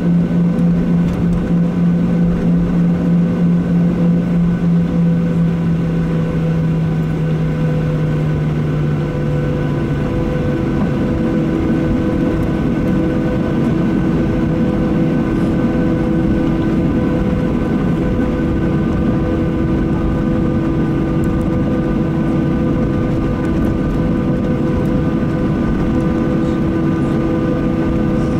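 Boeing 737-800's CFM56-7B turbofan engines running at taxi power, heard from inside the cabin beside the wing: a steady hum with several steady tones. About ten seconds in, the lowest tone drops away and a higher tone comes in.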